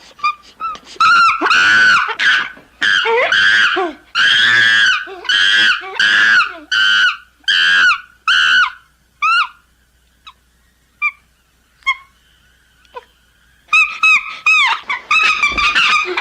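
A primate screaming: a rapid series of about ten shrill, rising-and-falling calls, a lull with a few short yelps, then another quick burst of screams near the end.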